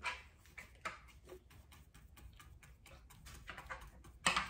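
Faint, irregular light taps and clicks of painting at a table, with brush, canvas board, palettes and water cups being handled. The sharpest taps come at the start, about a second in, and near the end.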